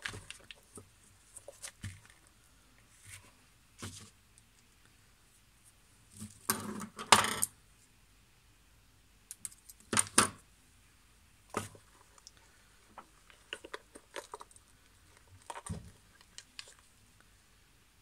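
Small hand tools and metal parts clicking and clinking as they are handled and set down on a work table, in scattered knocks with louder clatters about seven and ten seconds in.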